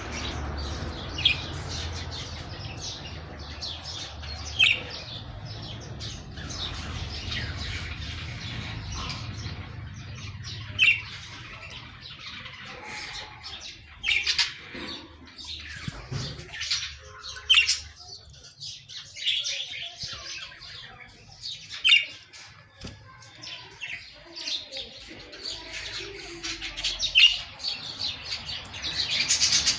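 Budgerigars chirping and squawking in short, sharp calls, scattered irregularly.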